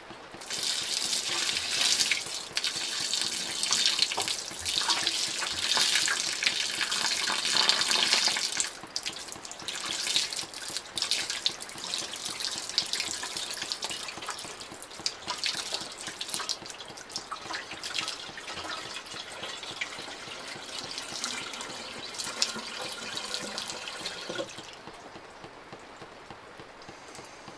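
Rainwater poured from a bucket into a Rotopax water container: a strong, steady gushing pour for about eight seconds, then a thinner, broken trickle that stops a few seconds before the end, leaving the patter of rain.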